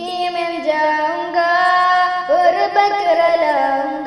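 Unaccompanied high solo voice singing a naat melody in long, wavering held notes that glide between pitches, with no instruments.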